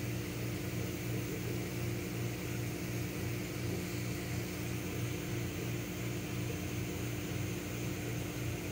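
Steady low hum with a faint regular pulsing, over an even hiss, from aquarium aeration equipment.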